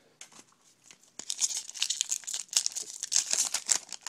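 Foil trading-card pack wrapper being torn open and crinkled. After a quiet first second it becomes a dense run of short, crisp rustles.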